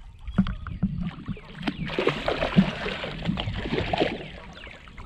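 A hooked carp thrashing at the surface alongside a kayak, splashing the water. It starts with scattered knocks, then a heavy burst of splashing about two seconds in that lasts around two seconds before it settles down.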